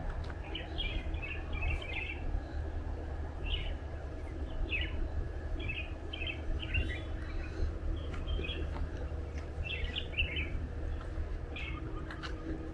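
Birds chirping in short clusters of high notes, coming every second or so, over a steady low rumble.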